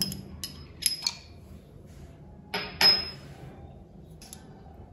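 Small glass bowls clinking against each other and the tabletop as they are handled: a few light clicks in the first second, then a louder clink with a short bright ring about two and a half seconds in.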